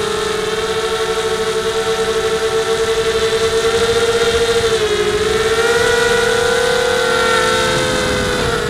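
Blade 200 QX quadcopter's brushless motors and propellers whining, heard up close from the camera mounted on the craft. The pitch holds steady, dips briefly about five seconds in, then rises again with the throttle, with a regular pulsing beat in the loudness.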